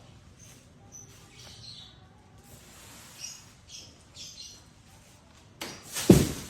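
Small birds chirping in short, scattered calls; about six seconds in, a single loud thump with a brief rushing noise.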